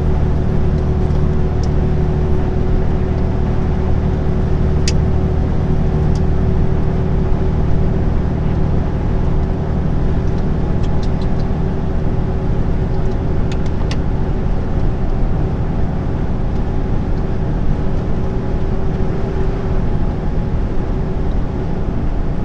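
Inside a delivery truck's cab at steady motorway speed: an even engine drone with tyre and road noise. A few faint clicks come through it.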